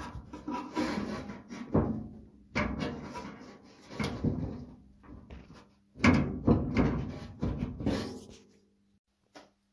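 Knocking and rattling of a loosely test-fitted 1927 Ford Model T steel fender, handled and moved by hand, in three bursts that stop about a second before the end.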